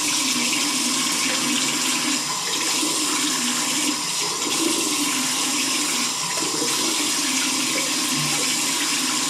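Tap water running steadily into a bathroom sink while hands scoop and splash it onto a face.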